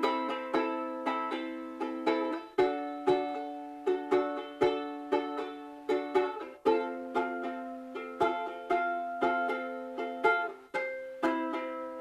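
Ukulele playing chords in a steady rhythm, the chord changing about every four seconds.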